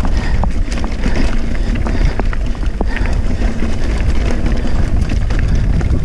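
Wind rushing over the microphone as a mountain bike rolls fast down a rocky dirt trail, with scattered sharp knocks and rattles as the tyres hit loose stones.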